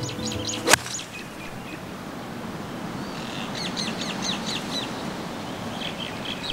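A golf club strikes a ball in a tee shot: one sharp crack less than a second in. A bird chirps in quick runs of short, down-sliding notes before and after the crack.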